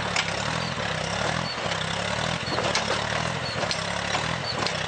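An engine running steadily with a regular low pulse, under a continuous hiss.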